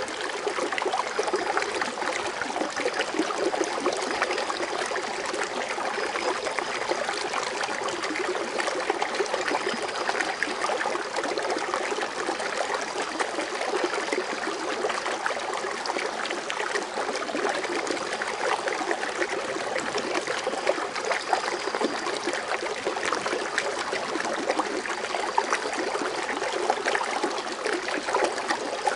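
Water fountain splashing and trickling in a steady, continuous rush with fine splashes.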